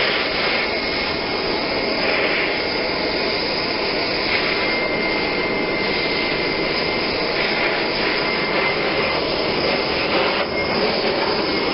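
Handheld gas torch burning with a steady rushing hiss, its flame played over a plastic barrel to smooth the surface; a faint high whistle comes and goes.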